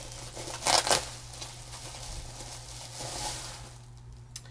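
Packing wrap rustling and crinkling as a wrapped mug is pulled free by hand, with a louder crinkle about a second in and a swell of rustling near three seconds.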